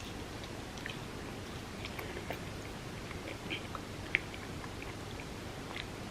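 Close-miked eating: soft chewing with scattered small, wet mouth clicks, one sharper click about four seconds in, over a steady background hiss.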